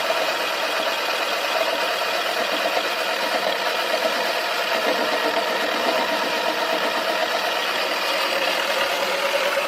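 Toy washing machine spinning its drum with a detergent dispenser ball inside: a steady motor drone.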